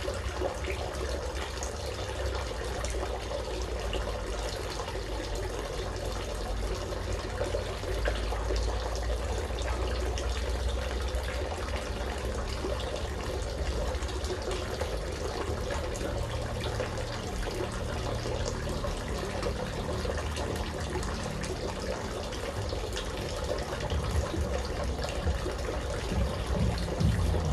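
Water falling and splashing in a steady stream.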